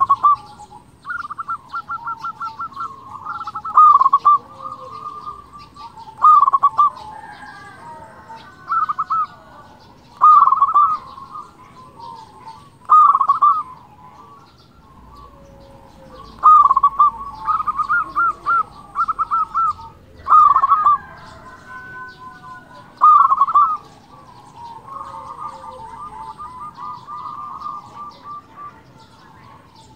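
Zebra dove (perkutut) in full song: short bursts of rapid, rolling coos, repeated every two to four seconds with softer trilling runs in between.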